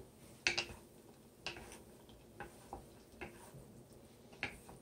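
Two wooden spatulas knocking and scraping against a nonstick pan as broccoli is tossed, about six light, irregular taps.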